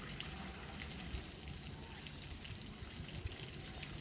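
Steady water sound in a hippo's pool: water running and lapping, with a few faint ticks.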